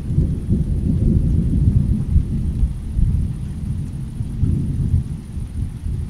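Thunderstorm ambience dominated by a low rolling rumble of thunder, which swells over the first three seconds and again about five seconds in.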